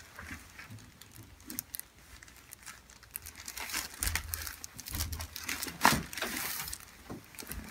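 Crinkling and rustling as a patient turns over on a chiropractic treatment table, with scattered light clicks and one sharp, loud click about six seconds in.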